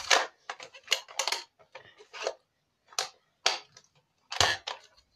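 Irregular plastic clicks and knocks from a toy sniper rifle being handled, with one louder knock near the end.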